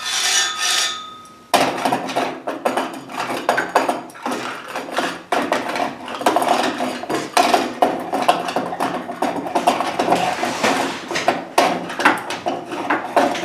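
Continuous rapid clattering and knocking of hard pieces, typical of a wall being hammered and pulled apart during demolition, starting suddenly about a second and a half in.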